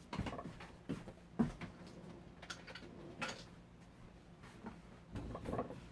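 Faint, scattered taps and clicks of small craft items being handled and moved about, with a few sharper knocks in the first three and a half seconds.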